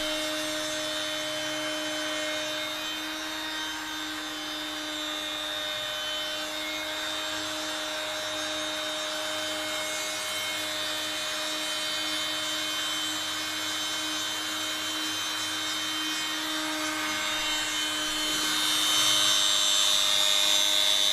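Homemade CNC router milling a gear-shaped outline into a wooden board: the spindle motor runs with a steady whine over the noise of the cut. It grows louder about 18 seconds in.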